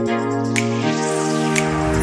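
Background music: sustained chords with a sharp beat about once a second, the chord changing about halfway through.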